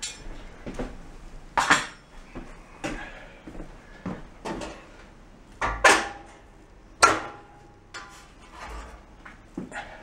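Sheet-metal clanks and knocks from an old gas range's steel stovetop being handled and lifted up: several sharp hits spread out, the loudest two about six and seven seconds in, the last ringing briefly.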